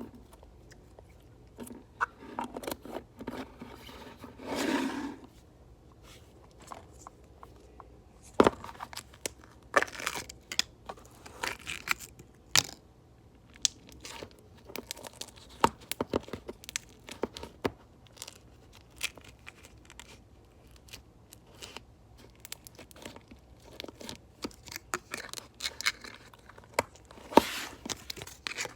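Slime being squished and pulled by hand, giving irregular sticky crackles, clicks and pops.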